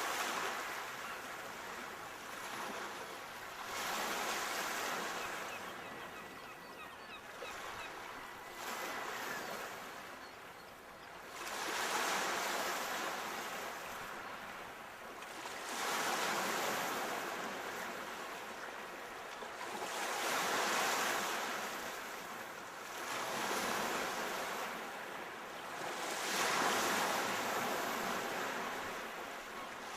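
Sea waves breaking and washing on the shore, the surf swelling and easing about every four seconds.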